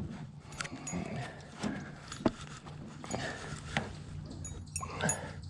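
A freshly netted northern pike thrashing in the landing net in a john boat: irregular knocks and clatters, a few of them sharp.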